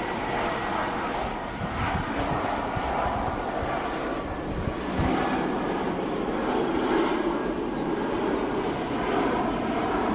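Airbus A320 jet landing and rolling out on the runway: a steady rushing engine noise with a constant high-pitched whine over it. It swells a little about five seconds in, after touchdown.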